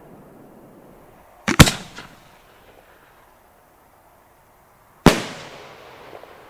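Homemade spherical firework shells going off: a sharp doubled bang about one and a half seconds in, then another sharp bang about five seconds in that trails off over a second.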